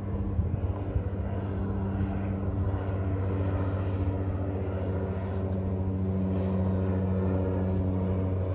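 Steady engine drone, a low hum that slowly grows louder.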